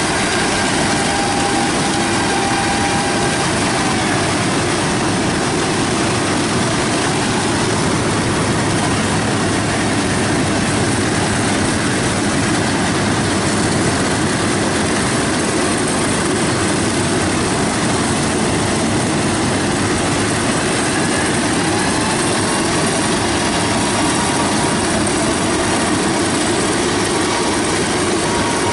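Yanmar AW82V rice combine harvesters working the crop: engine and threshing machinery running steadily and unbroken.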